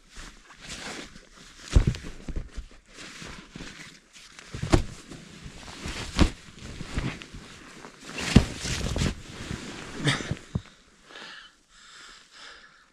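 Nylon bivvy bag and sleeping bag rustling and scraping as a person wriggles out of them, with irregular knocks and bumps against an inflatable paddleboard underneath. The movement sounds die down to faint rustles for the last couple of seconds.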